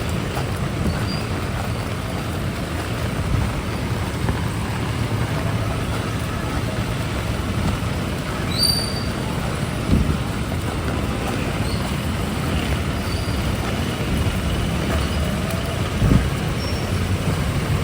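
Heavy rain falling steadily with road traffic passing, and a few short thumps about ten and sixteen seconds in.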